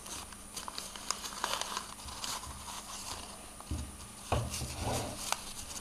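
Folded origami paper rustling and crinkling as hands slot square paper units into a cube, with scattered small clicks and a few dull bumps around four seconds in.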